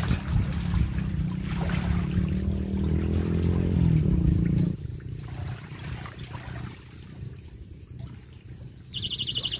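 Water sloshing around the legs of a man wading in shallow lake water, under a low wind rumble on the microphone that cuts off abruptly about halfway through. Near the end a steady, pulsing high electronic tone starts suddenly.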